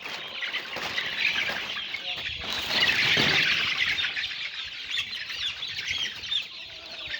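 A flock of six-week-old chickens chirping and clucking together, the calls thickest and loudest about three seconds in.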